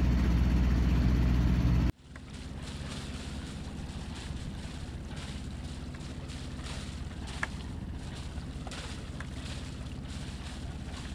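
A sailboat's engine running steadily as the boat motors in, with water washing along the hull. The sound drops suddenly to a much quieter level about two seconds in, after which the engine carries on lower with water and some wind on the microphone.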